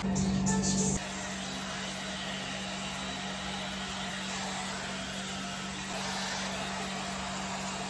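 Hot air brush (blow-dry brush) running, its fan motor blowing with a steady whir and a constant hum. It is louder for about the first second, then even.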